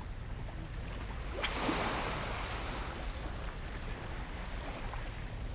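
Small shore wave washing up onto the sand: a hiss that swells about a second and a half in and fades away over a couple of seconds. Under it, a steady low rumble of wind on the microphone.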